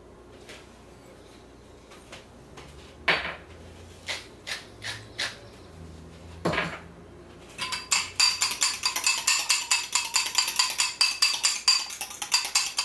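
A few scattered light knocks, then from just past halfway a fork beating eggs in a ceramic bowl: rapid, steady clinking of metal on ceramic.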